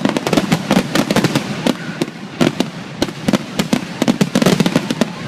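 Fireworks display: a rapid, unbroken run of overlapping bangs and crackles, several a second.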